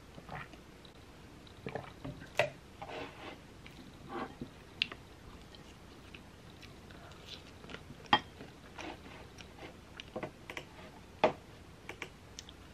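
Quiet eating sounds: a wooden spoon scraping and knocking in a bowl, with soft chewing between the strokes. A few sharper clicks stand out, about two and a half, eight and eleven seconds in.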